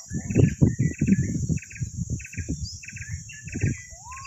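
Insects calling: a steady high buzz with short chirping trills repeated about twice a second. Louder irregular low knocks and rumbles close by, strongest in the first second and a half.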